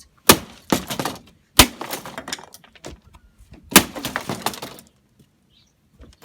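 Four hard blows smashing a vintage modem's plastic casing, each followed by the crackle of breaking pieces. The last strike comes a couple of seconds after the first three, and it goes quiet near the end.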